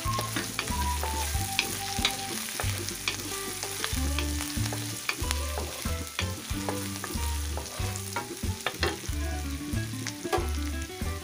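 Grated ginger and green chillies sizzling in hot ghee in a kadhai, stirred with a wooden spatula that scrapes and clicks against the pan.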